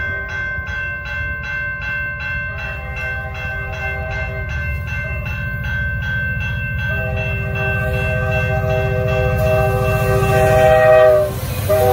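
Grade-crossing bell ringing in steady, rapid strokes while an approaching CN SD75I diesel locomotive sounds its horn, a chord of several notes, in long blasts that grow much louder from about seven seconds in, break off briefly near the end, then resume. Underneath, the locomotives' engine rumble swells as the train nears the crossing.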